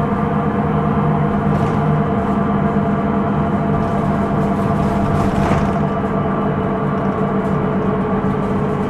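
Cabin running sound of a Hino Rainbow II (SDG-KR290J1) non-step bus on the move: a steady drone carrying several steady humming tones, which the recording labels an abnormal noise (異音). A brief swell of hiss about five seconds in.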